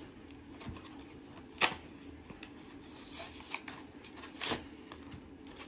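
A toy's paper and cardboard packaging being handled and opened by hand: rustling and crinkling with scattered clicks, one sharp click about a second and a half in, and a couple of louder rustles in the second half.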